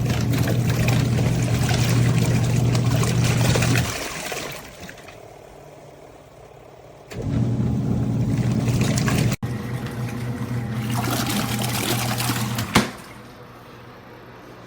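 Costway twin-tub portable washer on its rinse cycle: the wash motor hums low while the water churns and splashes in the tub, in two runs of about four and five seconds with a pause of about three seconds between, the agitator stopping and starting. A short click comes as the second run stops.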